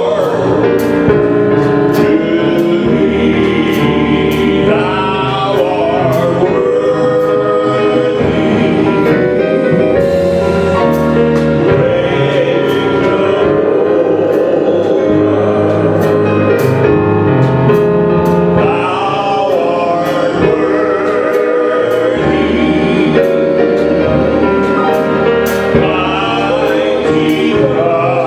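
Gospel worship music: several voices singing over instrumental accompaniment with a steady beat.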